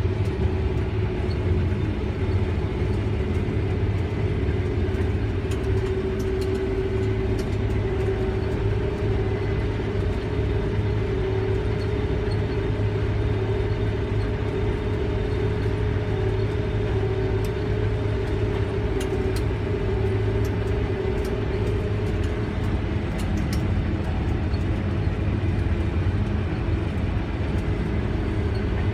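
Combine harvester running steadily while it cuts wheat, heard from inside the cab: an even engine-and-machinery drone with a held low hum, and faint light ticks now and then.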